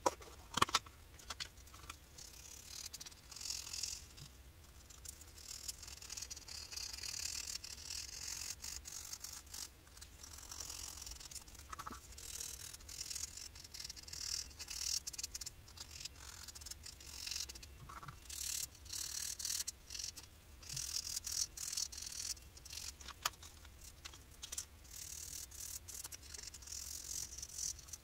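Hands rubbing and working a small piece of leather: repeated short brushing, scraping strokes with scattered light clicks of handling.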